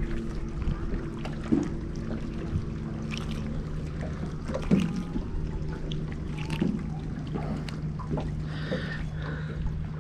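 Small clicks and taps of a hook being worked out of a small smallmouth bass's mouth by hand, over a steady low drone.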